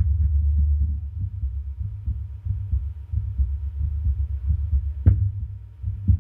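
Muffled low rumbling with many irregular soft thumps, picked up by a microphone held against the chest. A sharp click about five seconds in.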